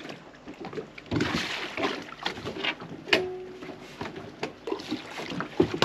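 Bumps, knocks and water lapping from someone climbing into an inflatable dinghy and handling its outboard motor, with a sharp knock and a brief squeak about three seconds in.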